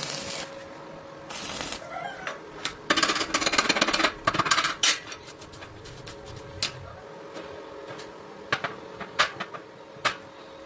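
Hard objects clicking and clattering: scattered sharp knocks, a dense rattling stretch about three to five seconds in, over a faint steady hum.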